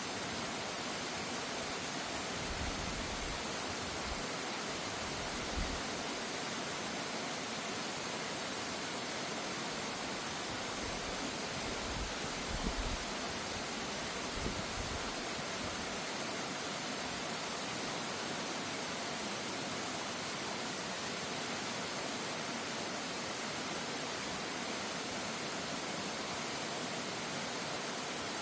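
Mountain valley stream rushing steadily over rocks, a constant even hiss of water. A few brief low bumps sit under it, near the middle.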